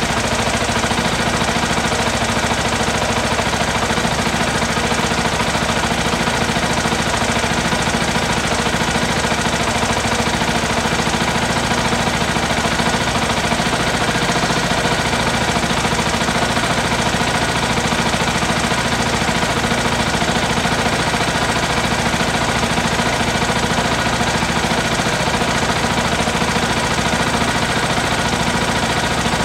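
Yamaha WR125X's single-cylinder four-stroke engine idling steadily, holding the same note throughout.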